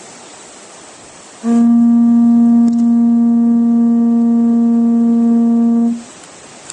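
Hawaiian conch shell trumpet (pū) blown in one long, steady, loud note that starts about a second and a half in and holds for about four and a half seconds before stopping sharply.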